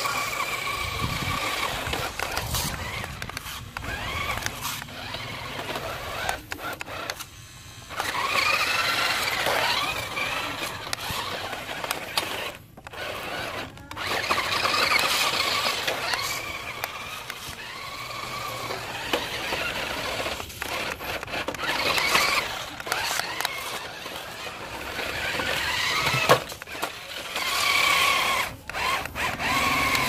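Toy RC rock crawler's electric motors and plastic gearboxes whining in bursts of a few seconds as it drives, the pitch rising and falling with the throttle. Short knocks come in between.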